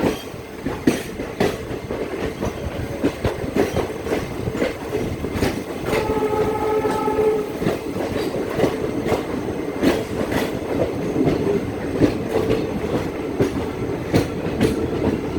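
Train running along the track, a steady rumble with repeated clickety-clack of wheels over rail joints. A horn-like steady tone sounds for about a second and a half around six seconds in.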